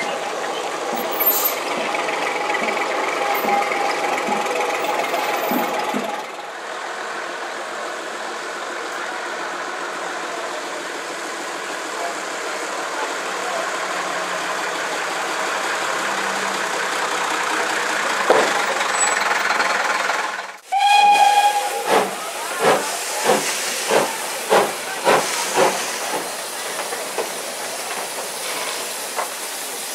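Street noise with a bus engine running for the first two-thirds. Then a short blast on a steam locomotive whistle (GER J15 0-6-0 No. 564) is followed by a run of exhaust chuffs, about two a second, with steam hissing as the engine works.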